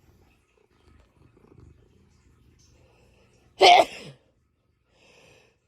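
A man sneezes once, loudly and suddenly, about three and a half seconds in.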